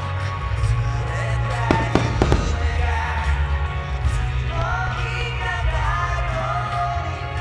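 Rock/pop song with singing playing loudly under a fireworks display, with a quick cluster of sharp fireworks bangs about two seconds in.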